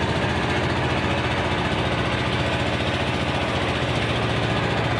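Engine of a small wooden tourist boat running steadily while under way on the lake, with a fast, even pulse.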